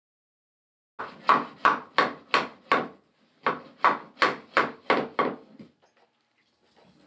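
Wooden mallet knocking on a rough wooden bowl blank mounted on a lathe chuck: starting about a second in, two runs of six sharp knocks, about three a second, with a short pause between them. Each knock rings briefly.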